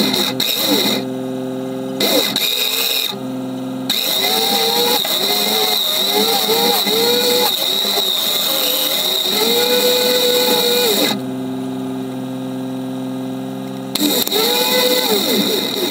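Electric 4WD winch whining as it hauls a bogged Toyota Hilux through deep mud, stopping and starting several times, with the Hilux's engine revving in short rises and falls as it drives up on the cable.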